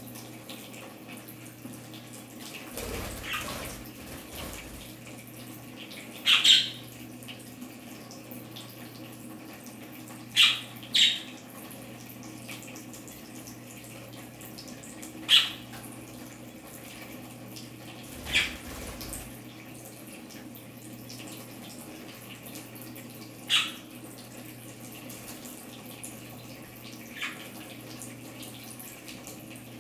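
Water trickling steadily from a small fountain tube into a budgie bath tub, with short, sharp budgerigar chirps every few seconds, about seven in all.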